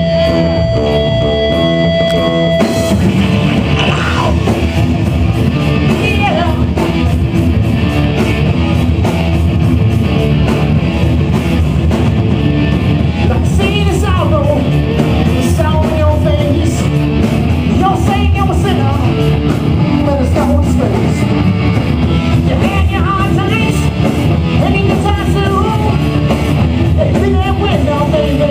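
Live rock band playing loud and steady: a held note over repeating chords for about the first three seconds, then the full band comes in, and a singer starts about four seconds in.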